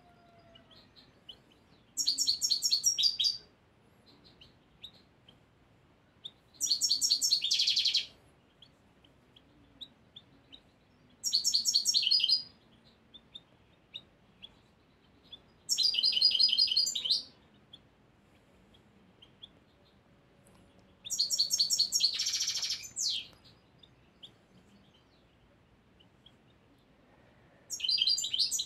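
Young male European goldfinch in its first year singing short phrases of rapid, high, twittering notes, each about a second long with a few seconds' pause between them, about six in all. It is at the stage of settling its song learned from a tutor recording. Faint ticks sound between the phrases.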